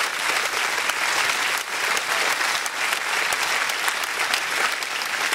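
Crowd of about a thousand people applauding, a steady dense clatter of clapping hands.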